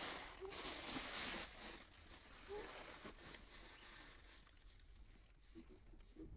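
Dry fallen leaves rustling and crackling under a baby long-tailed macaque scampering over them, loudest in the first second and a half and then fading. A few faint short chirps come through.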